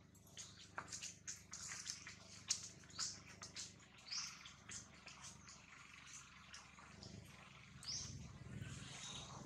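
Macaques grooming in a tree: faint scattered clicks and rustles with two short, rising high chirps, about four seconds in and near the end, and a low hum building toward the end.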